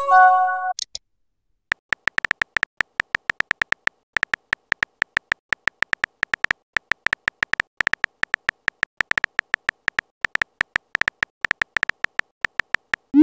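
A short multi-note messaging-app chime as a chat message pops in. It is followed by a fast, uneven run of phone-keyboard typing clicks as a reply is typed letter by letter, with a brief pause about four seconds in.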